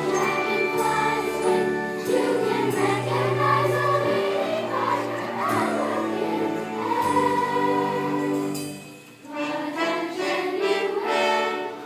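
Several voices singing a slow tune in long held notes with musical accompaniment, with a brief break about nine seconds in.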